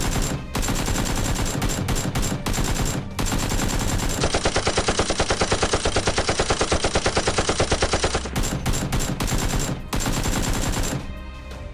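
Rapid automatic gunfire sound effects in long bursts with a few short breaks between them, fading near the end.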